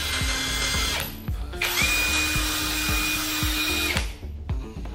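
Uchiha 48V brushless cordless impact wrench run in two bursts, the first about a second and a half long, the second about two and a half seconds with a steady whine. Background music with a steady beat plays underneath.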